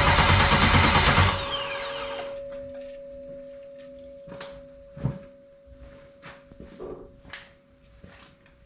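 LS LM4 V8 engine cranking over on its starter without firing, with no fuel reaching the injectors; the cranking stops about a second in as the starter winds down with a short falling whine. After that a faint steady hum and a few light clicks.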